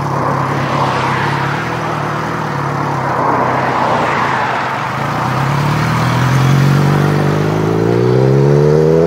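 Suzuki GSX 750 motorcycle's inline-four engine and exhaust running at steady revs under a rushing noise, then rising in pitch towards the end as it accelerates.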